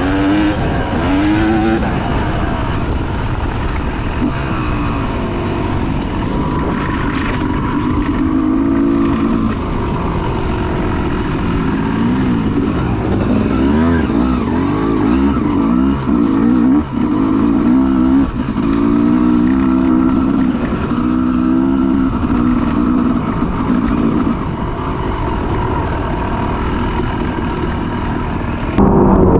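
Yamaha YZ two-stroke dirt bike engine being ridden hard off-road, its pitch climbing and falling over and over as the throttle opens and closes.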